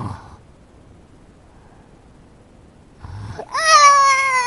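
A child's snoring trails off, then after about three seconds of quiet a loud, long, steady scream begins, a child's acted scream on waking from a bad dream.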